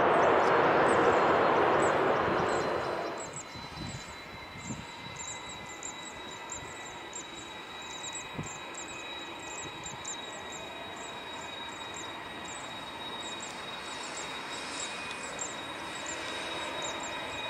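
Twin-engine widebody jet on its landing rollout, its engines running loud at high power in reverse thrust, throwing spray off a wet runway. About three seconds in the roar drops away, and the turbofans settle to a steady idle whine with a thin high tone as the plane slows to taxi.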